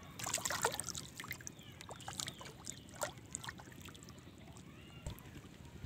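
Shallow paddy-field water splashing and sloshing: a quick run of small splashes that thins out after about three seconds.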